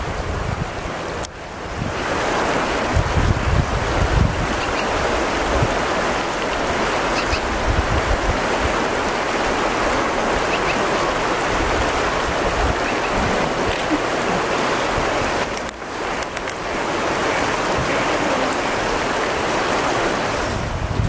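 Steady rushing outdoor noise with wind buffeting the microphone in irregular low gusts, dipping briefly twice.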